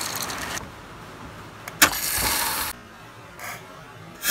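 Birdseed pouring into a plastic bottle with a dry rattle that stops about half a second in. Then comes one sharp click, a short stretch of hiss and a brief burst of noise.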